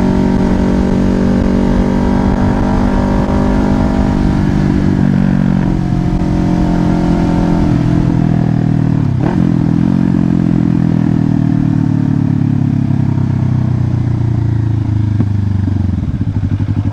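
Kawasaki Ninja 500 parallel-twin engine running, its note falling steadily in pitch as the revs drop, with a brief dip about nine seconds in. Near the end it settles into a low, uneven throb.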